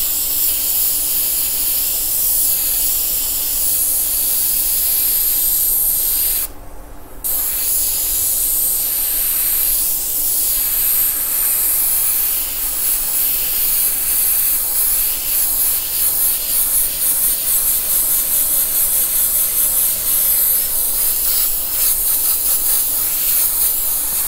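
Airbrush spraying paint onto a t-shirt: a steady hiss of compressed air through the nozzle. It breaks off for under a second about six and a half seconds in, and in the second half it wavers quickly in level as the trigger is worked.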